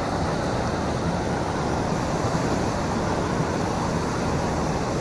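Steady outdoor rushing noise with no distinct events, the kind made by wind or moving water.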